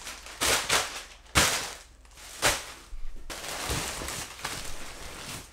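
A few sharp knocks and thuds, then a plastic shopping bag rustling as it is handled.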